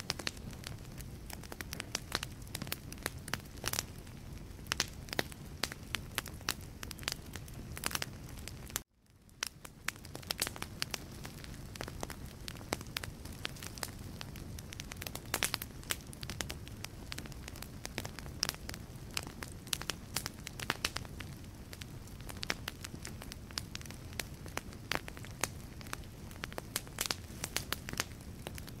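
Wood fire in a fireplace crackling and popping, with many irregular sharp snaps over a steady low rumble of the flames. About nine seconds in the sound cuts out suddenly and fades back up within a second or so.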